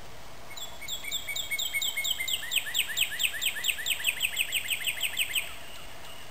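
A bird singing a run of clear, repeated notes that start spaced out and quicken to about five a second, lasting about five seconds before stopping abruptly.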